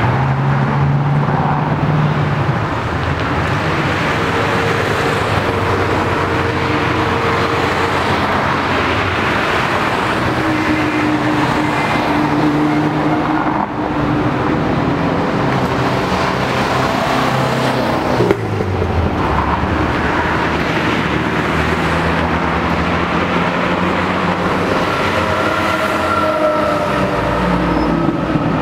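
A steady stream of cars passing along a street, several engines running at once, their pitch rising and falling as each one goes by. There is one brief knock about two-thirds of the way through.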